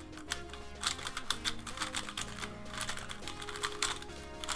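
Valk 3 M magnetic 3x3 speedcube being turned quickly by hand, a rapid stream of plastic clicks and clacks as it is broken in while still stiff and slow out of the box. Background music with held low notes plays underneath.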